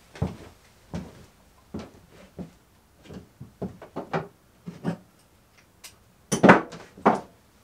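Irregular clanks and knocks of hand tools and metal engine parts being handled during an engine teardown, with a louder cluster of knocks about six seconds in.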